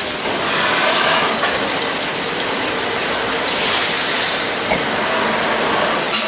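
Shop machinery running steadily with a dense mechanical noise, growing hissier for a moment about four seconds in.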